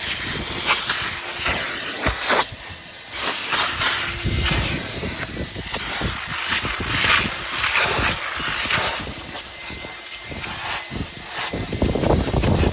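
Numatic CT375 wet vacuum running while its small fishtail nozzle sprays and sucks up cleaning solution from the car's upholstery, a loud hiss that surges and eases unevenly, with wind rumbling on the microphone.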